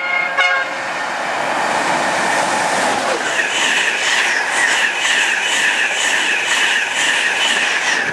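An express passenger train's horn cuts off just after the start as the train runs through the station at speed. The rushing noise of the passing train follows, and from about three seconds in there is a steady high whine with regular wheel clicks about twice a second.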